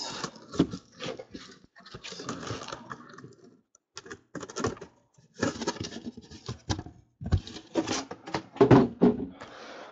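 Cardboard shipping case being slid up and off a stack of shrink-wrapped hobby boxes: irregular scraping and rustling of cardboard, with sharp knocks and taps as the boxes shift.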